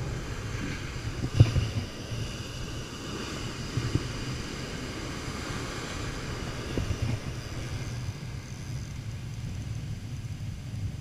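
Wind buffeting the microphone over breaking surf, with a sharp knock about a second and a half in and a few lighter knocks later.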